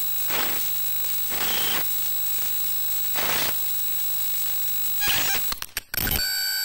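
Digital glitch sound effects: a steady electronic buzz with high whining tones, crossed by four swells of static hiss, then a rapid stutter of glitch clicks and a buzzing tone near the end.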